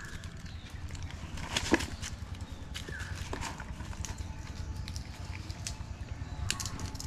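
Gray langurs rummaging in a cardboard box of biscuits on dry leaf litter: scattered crackles and taps over a steady low rumble.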